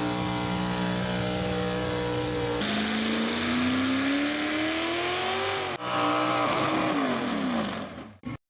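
A motor vehicle's engine in three spliced clips: first a steady drone, then a note that climbs steadily as the engine revs up, then a note that falls away. It cuts off abruptly just before the end.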